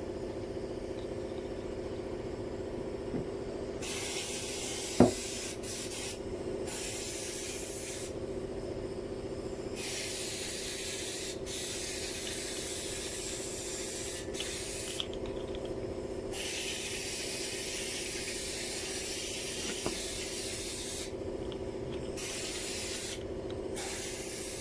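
Hissing in long bursts of one to six seconds that start and stop abruptly several times, over a steady low hum, with a single sharp knock about five seconds in.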